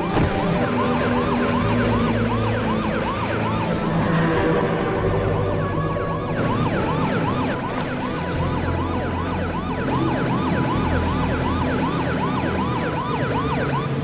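Electronic emergency siren on a rescue boat, sounding in a fast yelp: a quick rise and fall in pitch, repeated about two to three times a second without a break. A low steady drone runs underneath.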